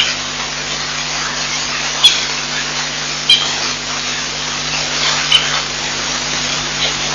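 Steady hiss with short, sharp, high-pitched clicks or chirps every one to two seconds, five in all.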